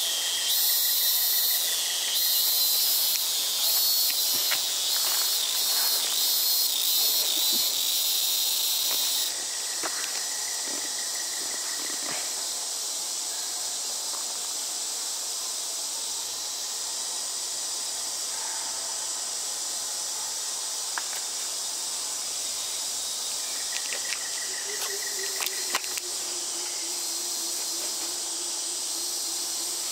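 Insects buzzing in chorus. A loud, high-pitched pulsing sound drops to a quieter, steady high hiss about nine seconds in.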